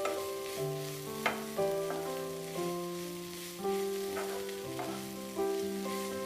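Background music of sustained keyboard notes over cabbage frying in a pan: a faint steady sizzle with a few short scrapes of stirring.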